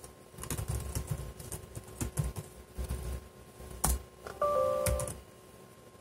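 Irregular clicks and light knocks of a laptop's keys and touchpad being worked. About four seconds in, the laptop gives a short two-tone electronic chime lasting under a second.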